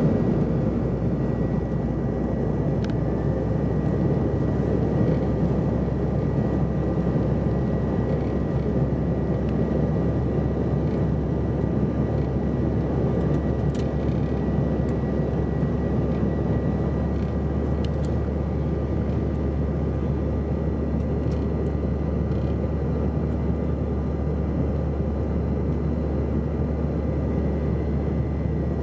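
Steady cabin noise of a Bombardier CRJ700 in flight on approach: a dense rumble of airflow and its rear-mounted General Electric CF34 turbofans, with a thin steady whine above it.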